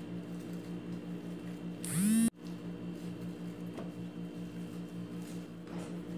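Steady electrical hum with an even, fast pulsing. About two seconds in, a short rising whine cuts off abruptly.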